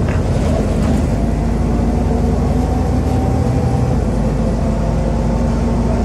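Scania N280UD double-decker bus under way, heard from inside the passenger cabin: its Scania DC09 9.0-litre five-cylinder diesel running steadily with a constant drone and road rumble.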